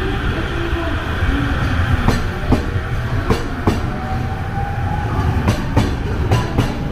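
Electric limited express train pulling into a station platform: a low rolling rumble with its wheels clacking over rail joints, the clicks mostly coming in pairs. A faint rising whine runs under it partway through.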